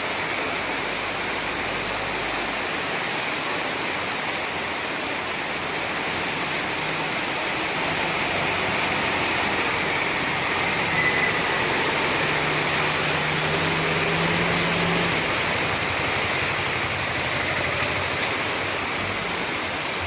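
Floodwater rushing in a steady, even torrent.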